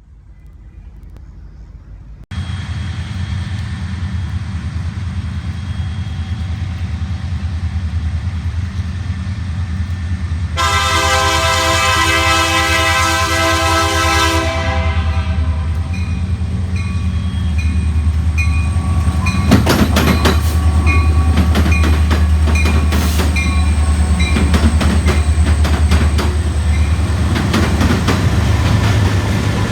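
Autorack freight train led by Union Pacific and Norfolk Southern diesel locomotives approaching with a steady low engine rumble. The lead locomotive's air horn sounds one long blast about ten seconds in, lasting about four seconds. In the second half the train is louder and its wheels click and clatter over the rail joints as it passes.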